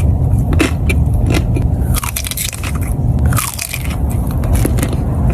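Close-miked eating of a fruit dessert: biting and chewing, with many quick crisp clicks and crunches over a steady low rumble.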